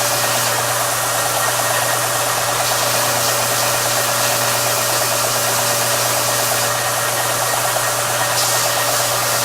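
Electric power sander running steadily against wood, sanding saw marks off a cherry and walnut bandsaw-box drawer to fit it.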